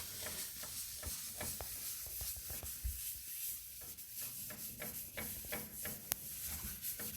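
A wet wipe dipped in wood ash rubbed over a soot-blackened fireplace glass door, in short irregular scrubbing strokes. A single sharp click about six seconds in.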